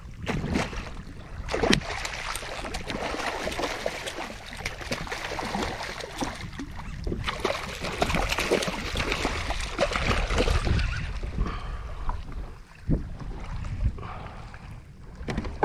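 Hooked redfish splashing and thrashing at the water's surface beside a kayak, over water sloshing and wind on the microphone, with scattered sharp knocks.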